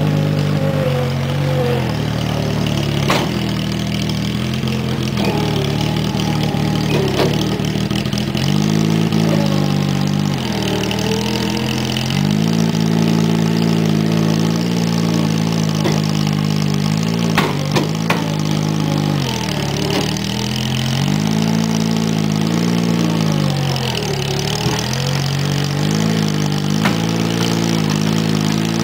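Case 1816 skid-steer loader with a swapped-in Geo Metro engine running under load as it drives and turns on a steep grade, its engine note sagging and picking back up about six times. A few short sharp knocks sound over it.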